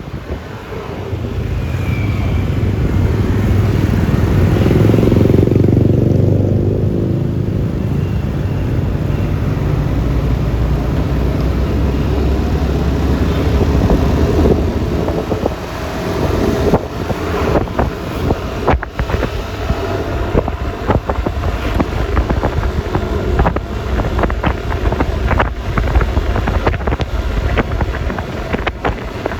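Riding noise from a Yamaha Lexi LX 155 scooter's 155 cc single-cylinder engine, tyres and passing traffic, louder for the first several seconds. In the second half, choppy wind buffets the microphone.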